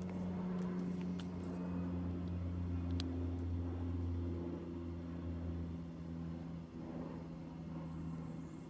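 Low, steady engine hum, swelling over the first few seconds and easing back after, with a couple of faint ticks over it.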